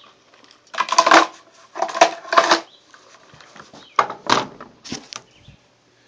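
Close handling noise: about four short bursts of scraping and knocking.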